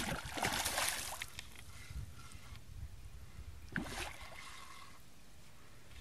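A hooked pike thrashing at the water's surface: a loud splash lasting about a second, then a second, shorter splash about four seconds in.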